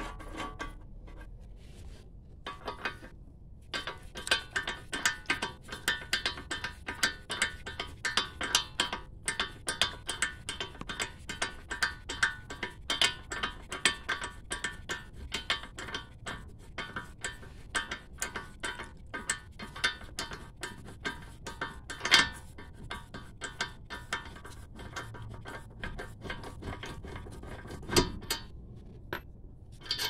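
Hand ratchet wrench clicking in quick runs with short pauses as a socket on a long extension turns a bolt at the front steering knuckle of a 2014 Dodge Charger during a wheel bearing change. There are a couple of louder metal knocks near the end.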